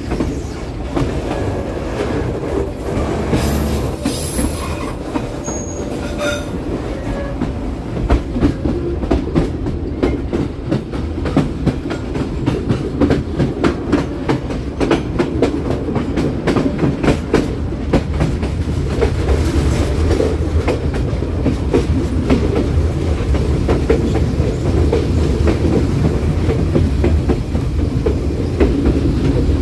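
Passenger train's wheels running on the rails under a steady low rumble, with a brief high wheel squeal a few seconds in, typical of flanges on a tight curve, then a rapid clickety-clack of wheels over rail joints.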